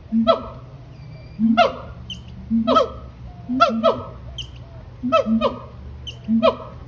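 A monkey calling in a repeated series, about one call a second: each call a short deep boom followed by sharp falling whoops, loud and chant-like.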